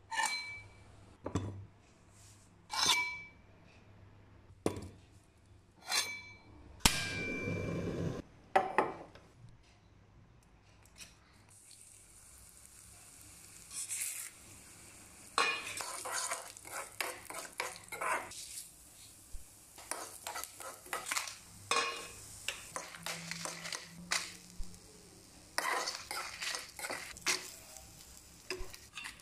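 Kitchenware clinking in short knocks, some with a brief ring. From about twelve seconds in, a faint steady sizzle begins as channa dal, dried red chillies, onion and coconut roast in a kadai. A steel spoon scrapes and clinks against the pan as they are stirred.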